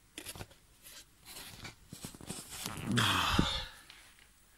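Handling noise from a phone being picked up and moved: soft rustles and light knocks, then a louder burst of rubbing with a dull thump about three seconds in.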